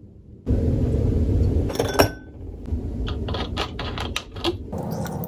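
A steady low rumble starts about half a second in. Over it, a single sharp glass clink with a brief ring, an ice cube against a tall drinking glass, comes about two seconds in. A run of small quick clicks and taps follows.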